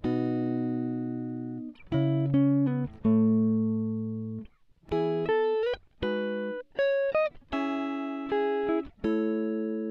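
Background music: a guitar playing slow plucked chords and single notes that ring and fade, a few of them sliding up in pitch.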